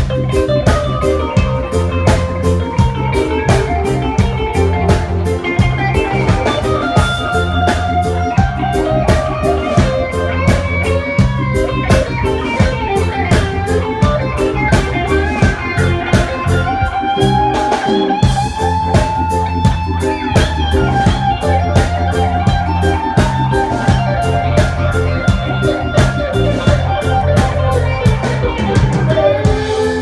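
Live band playing an instrumental stretch with no vocals: electric guitar melody lines over a steady bass and drum-kit groove.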